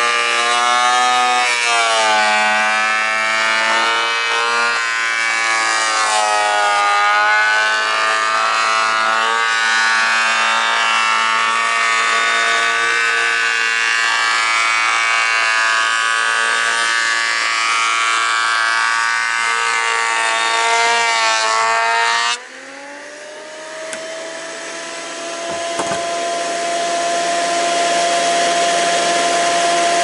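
Benchtop thickness planer cutting a wide board: the brushed motor's whine wavers in pitch under load. About two-thirds of the way through, the board clears the cutterhead. The sound drops abruptly, and the motor climbs to a steady, higher whine running free.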